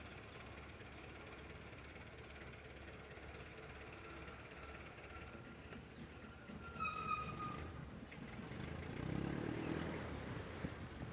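Faint outdoor background noise with a single high-pitched call about seven seconds in, lasting about a second and dipping slightly at the end, then a swell of low rumbling noise a couple of seconds later.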